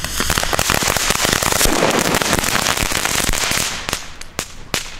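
Crackling volcano fountain firework going off all at once: a dense rush of crackling for about four seconds, which thins near the end into a few separate sharp cracks. The whole charge burned through at once instead of spraying steadily, which it should not do.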